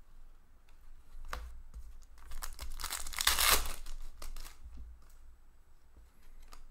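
Plastic-foil wrapper of an Upper Deck Series 2 hockey card pack being torn open and crinkled by hand. The tearing is loudest for a couple of seconds in the middle.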